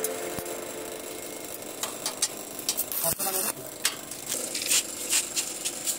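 Stick-welding arc crackling in short, irregular bursts as tack welds are laid on a stainless-steel square-tube frame.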